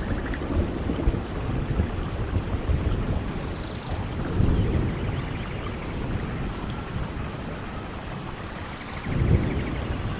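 Steady rain falling, with low rolls of thunder: one about four seconds in and a stronger one near the end.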